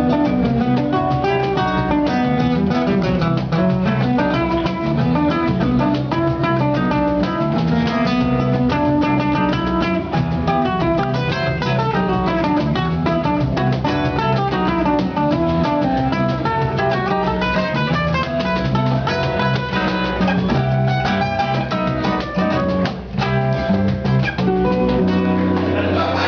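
Instrumental music on plucked strings: fast runs of notes over a steady bass line.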